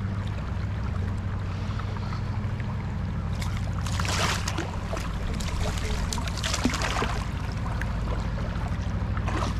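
Suzuki 2.5 HP single-cylinder four-stroke outboard motor running steadily, pushing the inflatable raft along. Water splashes against the raft twice midway.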